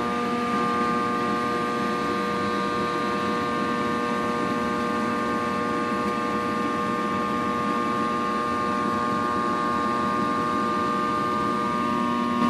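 Gas furnace running with its bottom blower turned up to a higher speed: a loud, steady hum with several steady whining tones over a rush of air. The noise is freaking loud, and its origin inside the furnace is unknown to the owner.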